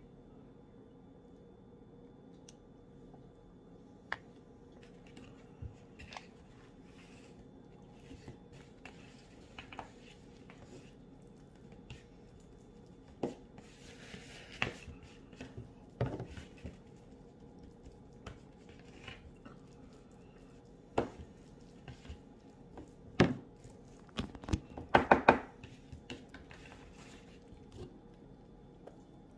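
Hands handling food on a paper plate: scattered soft clicks, taps and rustles as a tortilla is filled and folded, busiest near the end, over a faint steady hum.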